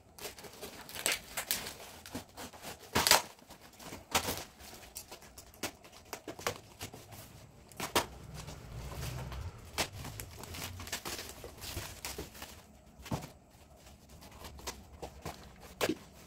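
Cardboard and plastic packing wrap being torn and crumpled by hand, in irregular rips and crinkles, the loudest about three seconds in.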